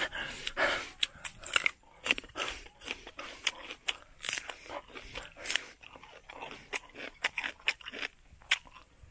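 Close-up crunching and chewing of a firm green fruit, a run of crisp irregular bites and chews.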